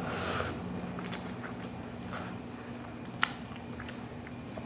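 A person eating instant cup noodles close to the microphone: chewing, a short rush of noise at the start and a few sharp clicks, over a faint steady low hum.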